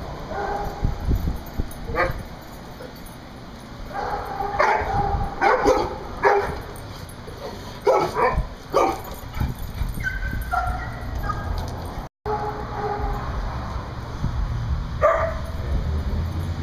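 A group of large dogs barking and yipping. The barks come singly or in short clusters, with gaps between them.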